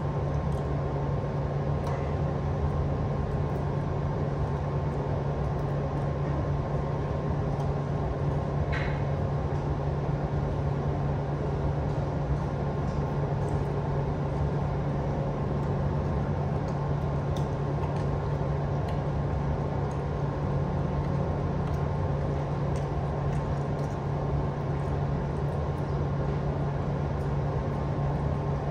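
Steady mechanical hum with a strong low drone, like a ventilation fan or refrigeration unit running continuously, with a few faint light clicks.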